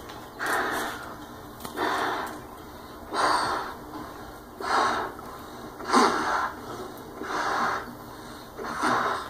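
A man blowing up a rubber balloon in breathy puffs, about one every second and a half, seven in all, played through a television's speakers.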